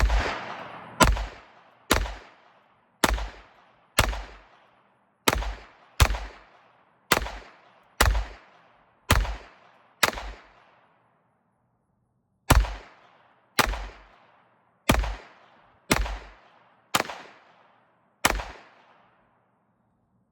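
Taurus TX22 .22 LR pistol firing high-velocity 40-grain rounds, seventeen shots at about one a second, each with a short echoing tail. The shots break off briefly after eleven, then six more follow.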